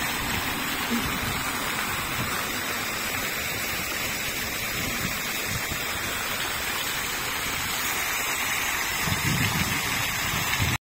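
Steady hiss of falling water splashing, with some low rumbling near the end.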